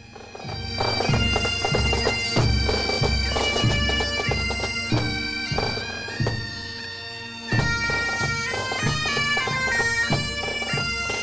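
Pipe band: bagpipes playing a tune over their drone, with a drum beating steadily underneath.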